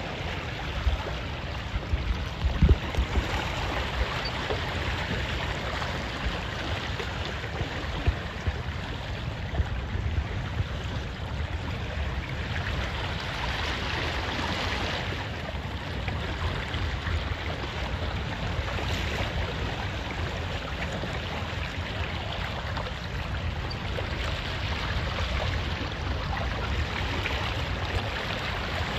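Water rushing and splashing along a small boat's hull as it moves through choppy water, with a few sharp knocks in the first few seconds.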